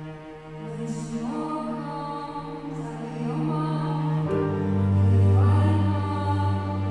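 A small vocal ensemble sings sustained choral lines over a soft string accompaniment. About four seconds in, a deep bass line enters and the music grows louder.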